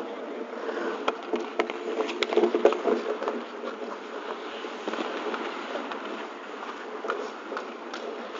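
Ice hockey skates scraping the ice and sticks and pucks clacking, with a quick string of sharp clacks in the first few seconds and scattered ones later, over a steady hum.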